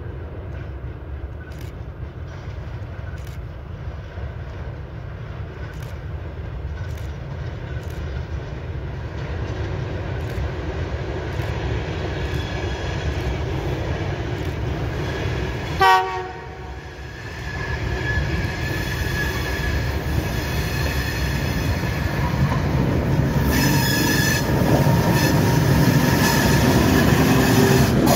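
2M62UM twin-section diesel locomotive hauling a freight train, its diesel engines running with a low rumble that grows louder as it approaches. About halfway through it gives one short horn blast, and near the end the wheels start clicking over the rail joints as the locomotive draws close.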